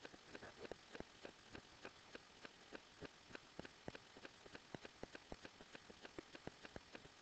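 Faint, fairly regular ticking, about three ticks a second, over a quiet room.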